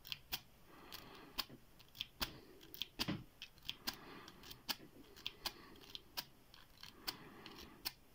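A W rake zipped repeatedly out of an IFAM padlock's keyway, making a quick irregular series of faint sharp clicks as it snaps over the pin stacks; the zipping fails to open the lock.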